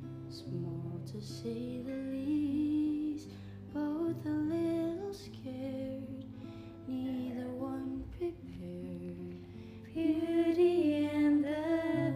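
A woman singing softly over plucked guitar chords, the melody growing louder near the end.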